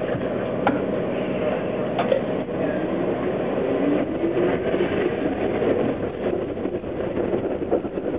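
Toronto TTC streetcar running on its rails, heard from inside at the front: a steady rumble with scattered clicks as the wheels pass over the track, and a motor whine rising in pitch about two to four seconds in as the car picks up speed.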